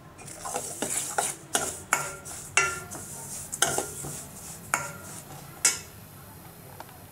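A steel spoon stirs a dry mixture of grated dried coconut and roasted poppy seeds in a stainless steel pan. It scrapes through the mixture and clinks sharply against the pan about nine times at uneven intervals, each clink ringing briefly.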